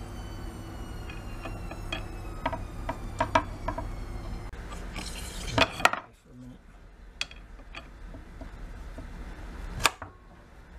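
Light metallic clinks and taps of steel air-rifle parts being handled and fitted together, with two louder knocks just before the middle and another near the end. A steady low hum underneath stops abruptly just past the middle.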